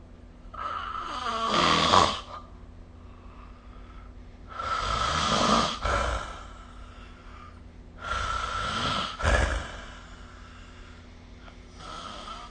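A sleeping person snoring: three loud snores about four seconds apart, each lasting a second and a half to two seconds, then a fainter one beginning near the end.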